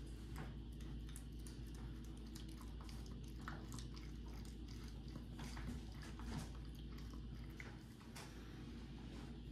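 A three-week-old puppy eating soft, mashed puppy food from a bowl: irregular small wet chewing and lapping clicks.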